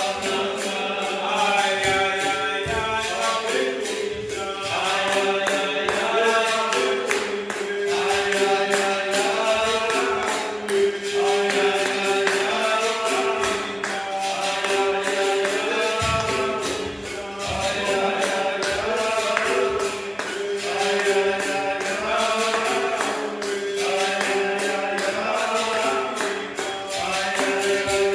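Capoeira roda music: a berimbau sounding a steady repeating rhythm under group singing and hand claps.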